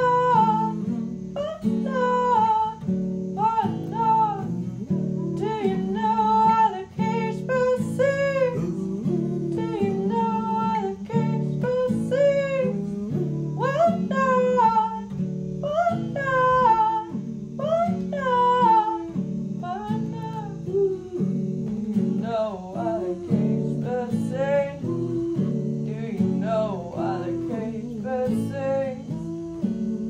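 A song: a voice singing a melody over acoustic guitar accompaniment.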